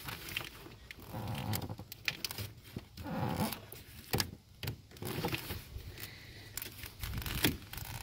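Hands working a plastic wiring-harness connector and its corrugated plastic loom: a busy string of sharp plastic clicks mixed with rustling and scraping.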